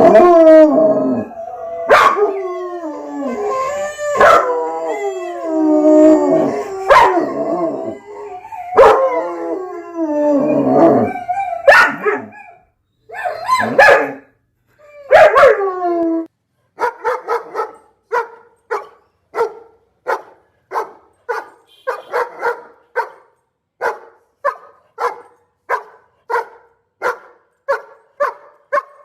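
Dog howling, with long calls that slide up and down in pitch. About halfway through it gives way to a steady run of short barks, roughly one and a half a second.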